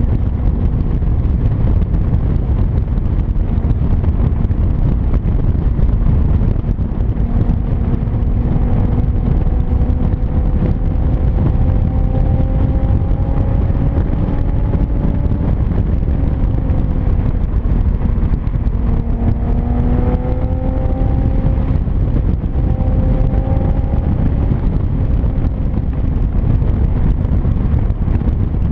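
Infiniti G37xS's 3.7-litre V6 through resonated test pipes and an Ark Grip cat-back exhaust, droning at cruise and rising slowly in pitch twice as the car gains speed. It sits under a heavy, steady rumble of wind and road noise.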